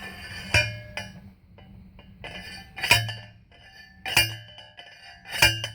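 A steel star picket being pounded into the ground: four ringing metal-on-metal strikes, about one every second and a quarter.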